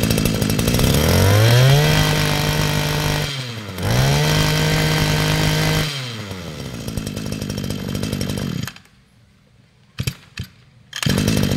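Hitachi 21cc two-stroke brush cutter engine (FCG21E) blipped twice: the pitch climbs to a high rev, holds, then falls back to idle. It idles briefly and cuts out. Near the end the starter cord is pulled and the engine catches again.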